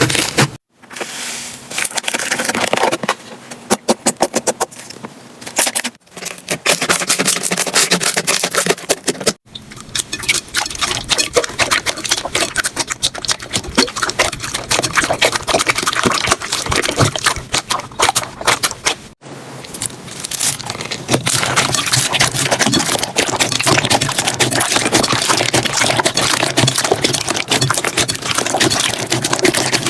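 Slime being squished and worked, a dense run of crackling, popping and sticky clicking, broken by brief silent cuts between clips about a second in, around 6 and 9 seconds, and around 19 seconds.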